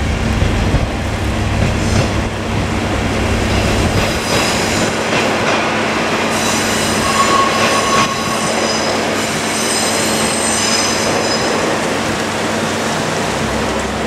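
KiHa 47 diesel railcars running past, their engine rumble dropping away about four seconds in, followed by high-pitched wheel squeal over the steady rolling noise of the train, loudest in the middle of the stretch and easing off near the end.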